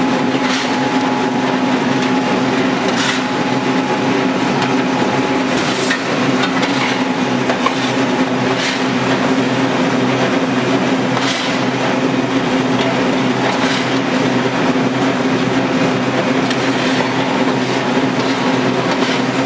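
LK120 screw oil press running under load, pressing seed, with a steady mechanical drone from its motor and screw. Scattered sharp clicks sound every few seconds over it.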